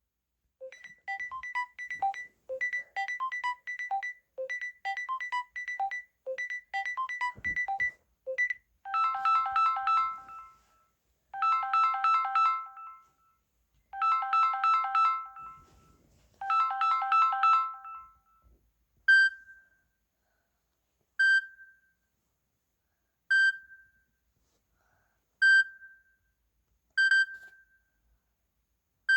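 LG mobile phone ringtones playing: first a short electronic melody repeated for about eight seconds, then four warbling ring bursts, then single bright pings about every two seconds.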